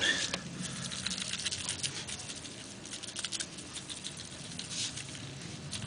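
Seasoning being worked onto a raw, oiled chicken: a light, irregular patter of small crackles and ticks.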